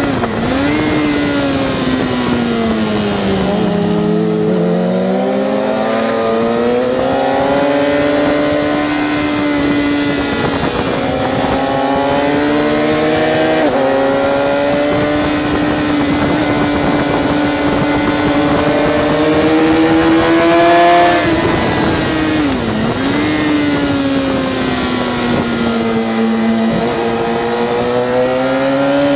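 Sport motorcycle engine heard from on board on a race track, with wind rush. The revs fall over the first few seconds under braking, climb back through the gears and hold fairly steady, then dip sharply a little past two-thirds through and rise again out of the corner.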